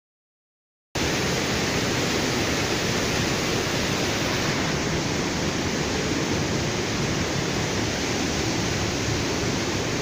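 Steady rush of a stream tumbling over rocks in a narrow canyon, cutting in abruptly about a second in after dead silence.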